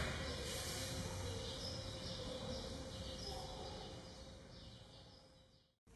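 Steady background noise of an indoor animal house, with a faint steady hum and a few faint bird chirps, fading out near the end.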